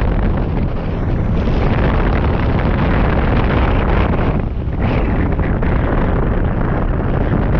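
Wind buffeting the microphone of a camera mounted on a hang glider in flight: a loud, steady rush of airflow that is heaviest in the low rumble, easing briefly about halfway through.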